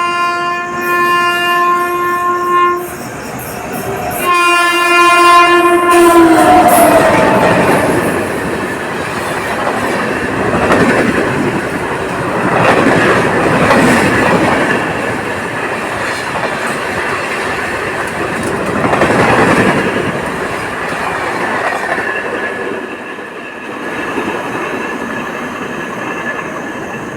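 An Indian Railways express train sounds its horn in two long blasts. The second blast drops in pitch as the locomotive passes. The train then runs past with a continuous rumble and clickety-clack of wheels over the rails.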